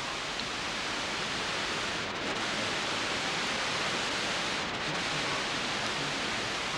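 Heavy rain falling on trees and the yard in a hurricane, a steady hiss.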